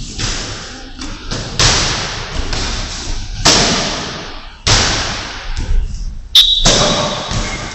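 Boxing-glove punches landing on gloves and headgear in a sparring bout: a run of heavy thuds, each echoing in the hall. There is a brief high squeak about six and a half seconds in.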